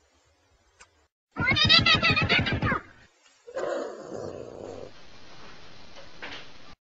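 A domestic cat lets out a loud, wavering yowl lasting over a second, about a second and a half in. A lower, rougher sound follows, then steady background noise that cuts off suddenly near the end.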